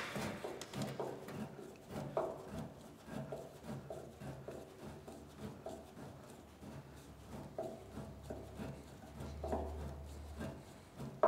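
Screwdriver turning stiff, rusted bolts at the base of an old arc welder's steel case: faint, irregular scraping and small metal ticks, ending on a sharper knock.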